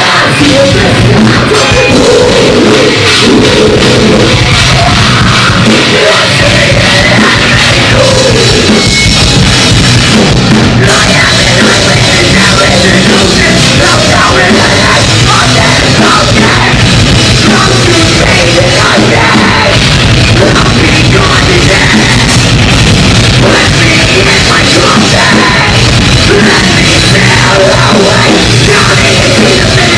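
A heavy metal band playing live, loud and distorted: electric guitars, bass and a full drum kit, with sung or screamed vocals at times.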